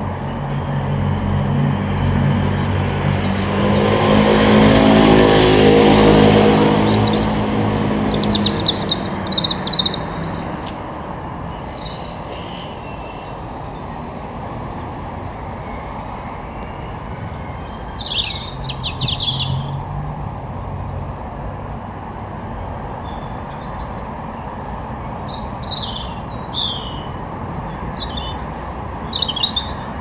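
A car passes close by, growing louder to a peak about five seconds in and fading away by about ten seconds. Small birds chirp in short, high phrases several times, over a steady low hum of distant traffic.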